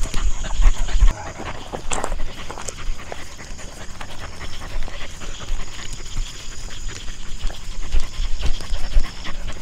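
A dog panting close by, with small scuffs and clicks of movement; a loud low rumble fills about the first second.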